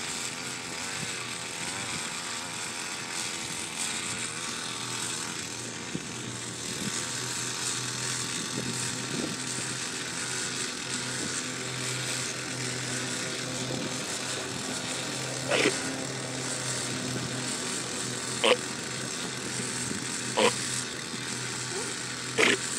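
Gas garden tiller's engine running steadily in the background. A few short, sharp, louder sounds break in over it in the last third.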